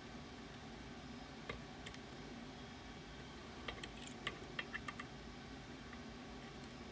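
Small sharp clicks of lock picks working inside a Ruko Garant 10 lock: two single clicks, then a quick run of clicks a few seconds in, over a steady low hum.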